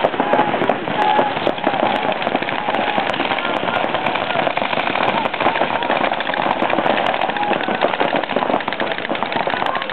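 Paintball markers firing in rapid, continuous streams, a dense crackle of shots from several guns at once, with voices calling over it.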